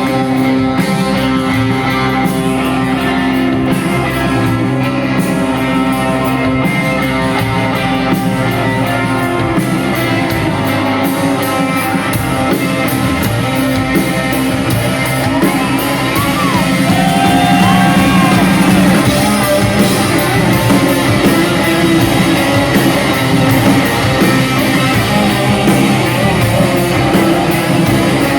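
Live rock band playing loudly in a concert hall: electric guitars, with singing around the middle.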